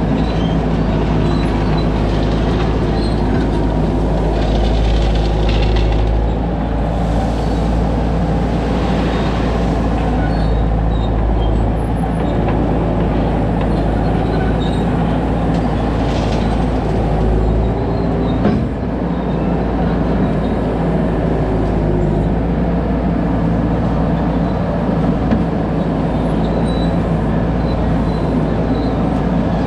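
Skid steer loader's engine running steadily while working, with a few brief spells of hiss over the engine. A sharp knock about eighteen seconds in, after which the engine runs a little quieter for a moment.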